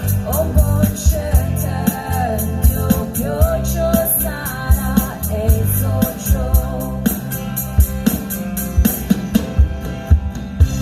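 A band playing a song: a singer's voice with vibrato over drum kit, bass and cymbals, with the vocal line ending about halfway and the band playing on.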